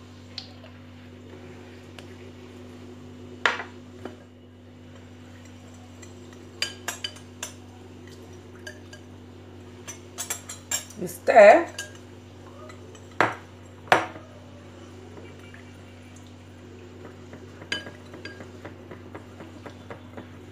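Metal spoon stirring in a glass mixing bowl, clinking and scraping against the glass. The clinks come irregularly, with a loud, dense cluster a little past the middle and two sharp knocks soon after.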